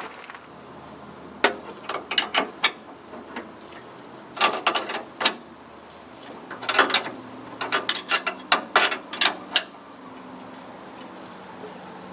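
Irregular metallic clicks and clanks of hand tools and parts being worked on a band sawmill while its blade is changed, in three bursts of several quick clicks.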